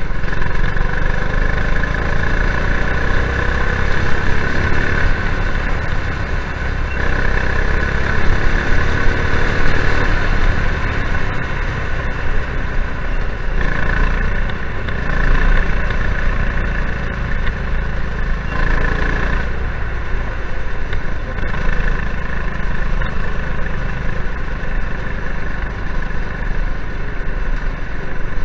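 Ken-Bar Streaker go kart's former dirt-track racing engine running at speed while the kart drives. The engine note eases off and picks up again a few times, around the middle.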